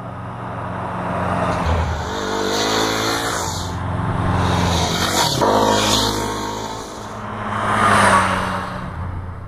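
Yamaha WR250R dual-sport motorcycle's single-cylinder four-stroke engine passing by several times. Its note swells as the bike approaches and drops in pitch as it goes past.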